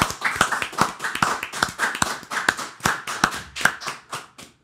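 A small group of people clapping their hands in a steady run of sharp claps that thins out and stops near the end.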